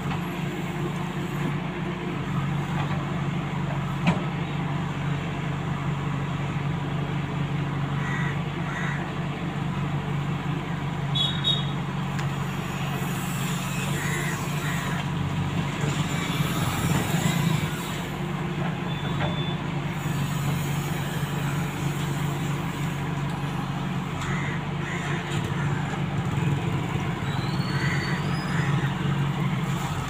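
JCB 3DX backhoe loader's diesel engine running steadily under load as its backhoe arm digs and dumps earth into a tipper truck, with a sharp knock about four seconds in.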